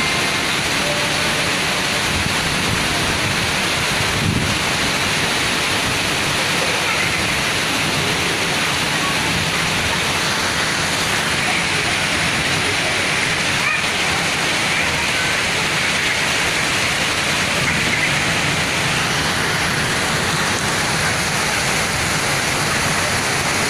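Heavy rain pouring down, a dense steady hiss that holds at the same level throughout.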